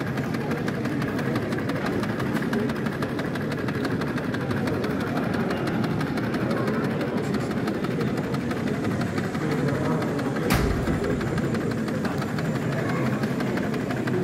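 Steady, even background hubbub of a model railway exhibition hall, with one sharp knock about ten and a half seconds in.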